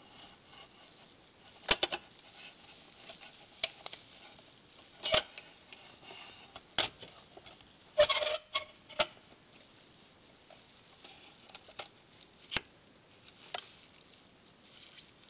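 Scattered sharp clicks and knocks of a plastic laser-printer drum cartridge and its metal axle being handled as the axle is slid through the drum. There are about a dozen separate ticks, with the loudest cluster about eight seconds in.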